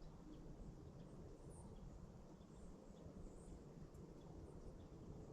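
Near silence: faint outdoor ambience with a few faint, brief high chirps scattered through it.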